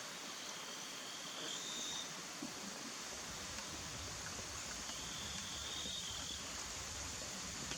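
Insects trilling: high, steady buzzing trills that start and stop, each lasting about a second, over a steady hiss, with a low rumble joining about three seconds in.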